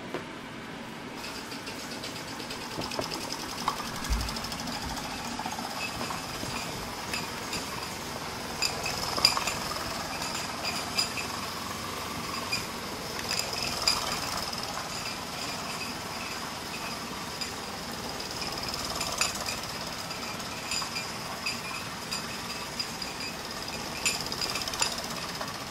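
Mamod steam roller's small oscillating-cylinder steam engine running unloaded, a rapid steady chuffing with a high hiss that sets in about a second in. Its metal rolls and fittings give scattered sharp clicks and clinks on the tiled floor.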